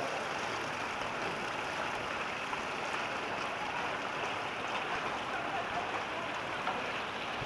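Hot spring water of a yubatake flowing steadily over rocks and through wooden channels, a continuous rushing and splashing.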